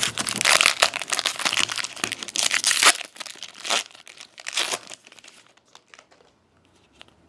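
Crinkling of a trading-card pack wrapper being handled: dense for about three seconds, then a few shorter crinkles that die away about five seconds in.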